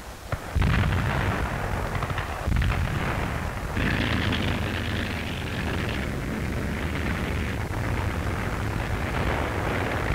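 Artillery fire and shell explosions on an old newsreel soundtrack. A sudden heavy boom about half a second in opens a continuous rumble of firing and impacts, with a harsher, hissing layer of fire from about four to six seconds in.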